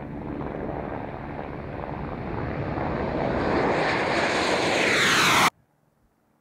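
Dassault nEUROn drone's Adour turbofan jet engine flying past low, growing steadily louder and higher-pitched as it approaches, then cutting off suddenly about five and a half seconds in.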